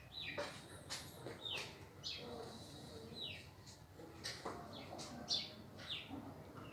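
Faint, repeated short high chirps from small birds, each sliding down in pitch, coming irregularly every half second or so.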